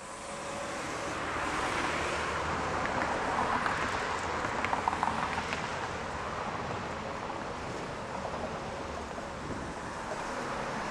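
City street traffic: cars and a city bus passing, a steady wash of road noise that fades in at the start, with a few brief sharp squeaks near the middle.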